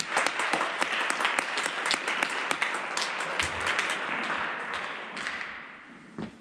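Audience applauding, a dense patter of claps that dies away near the end.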